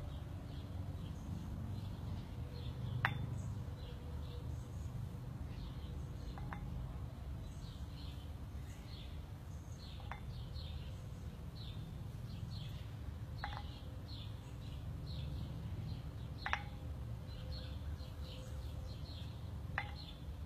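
A pair of metal dumbbells clinking together as they meet at the top of each chest fly, six times, about every three and a half seconds, each clink ringing briefly. Birds chirp throughout over a steady low outdoor rumble.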